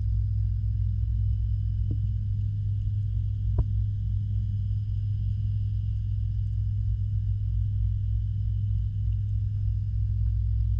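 Steady low hum of pond filtration equipment heard underwater, with two faint ticks about two and three and a half seconds in.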